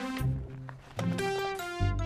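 Background music: a run of short, separate pitched notes over low bass notes.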